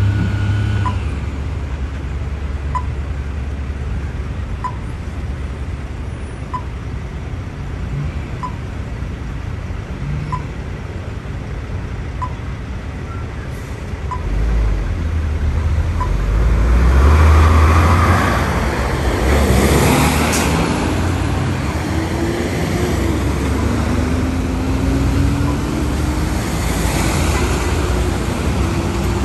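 A heavy vehicle's engine running under traffic noise, growing louder about halfway through and then revving up and down. Through the first half, a short beep sounds about every two seconds.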